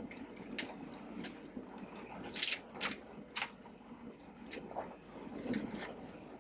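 Scattered clicks, taps and light scrapes of parts and hand tools being handled while LED light fixtures are wired in. The loudest clicks come about two and a half and three and a half seconds in.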